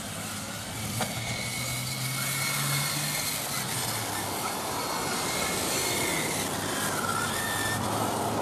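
1/10 scale electric RC touring cars running on an asphalt track: thin motor whines rise and fall with the throttle over a steady hiss and a low hum. There is a single sharp click about a second in.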